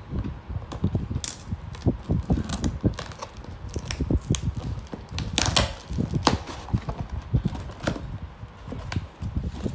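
Brown wrapping paper and packing tape being cut, picked at and torn off a cardboard box: irregular crinkling and sharp ripping, with soft knocks of the box being handled.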